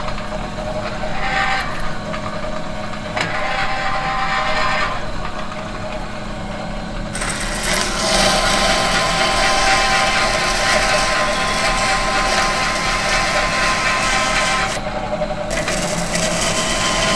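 Metal machine running with a steady hum and a mechanical whir, with several steady tones under it. About seven seconds in it grows louder and brighter. The high part drops out briefly near the end.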